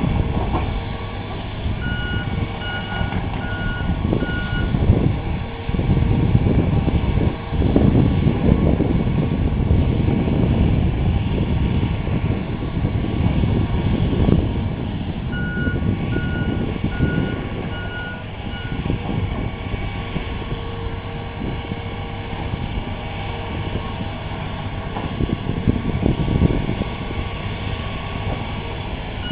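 Diesel engine of a Hitachi hydraulic excavator running and working, its rumble rising and falling with heavy knocks and clanks. A back-up alarm beeps steadily, about one and a half beeps a second, in two spells: a few seconds in and again just past the middle.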